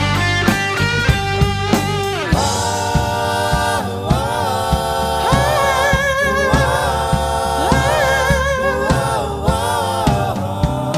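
Pop song with a sung vocal line over a steady beat.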